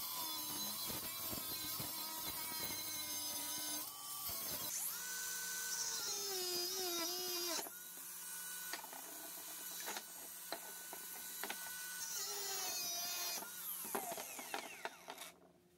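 Cordless angle grinder with a cutting disc cutting through a metal frying pan, a dense grinding screech for the first few seconds. The disc then spins with a steady whine, followed by scattered knocks as the cut pan pieces are handled on a wooden table, and a brief whine of the grinder near the end.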